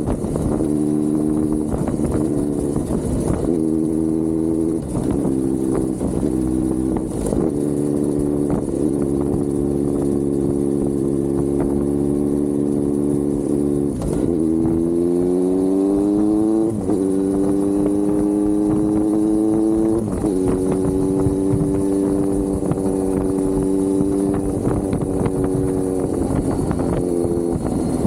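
Kawasaki Z900 inline-four engine running under way at steady revs, with several brief changes in the first few seconds. About halfway through it accelerates with rising revs, then drops in pitch at an upshift.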